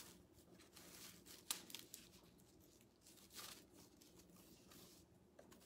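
Faint, scratchy rustling of nautical rope being pulled through and wrapped around a grapevine wreath by hand: a few brief brushing scrapes, about a second and a half in and again near the middle, over a low room hum.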